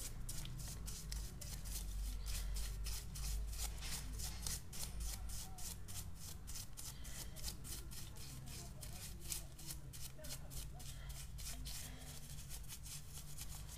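Petrol-soaked paintbrush scrubbing the body of a 30 mm PWK-type carburettor, a quick, even run of short brushing strokes, about four a second. A low steady hum lies underneath.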